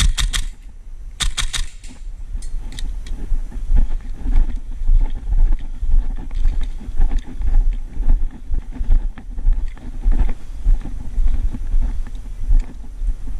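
Footsteps at about two a second, with kit and clothing rustling and wind rumbling on a body-worn action camera's microphone. A short run of sharp clicks and rattles comes in the first two seconds.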